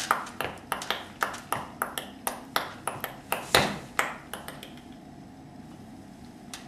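Ping-pong rally sounds: sharp, hard clicks about three a second. About three and a half seconds in comes one louder click, followed by a run of quicker, fading ticks like a ball bouncing to rest.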